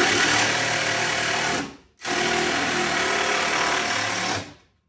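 A cordless power driver runs in two long bursts with a short pause between, driving the ladder's self-drilling stainless steel hex screws into the pickup's tailgate.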